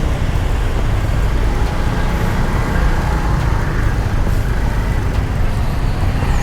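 Benelli Panarea 125 scooter engine running steadily, with steady wind and wet-road noise over it. The engine is being kept running because it is showing a check-engine fault and may not restart.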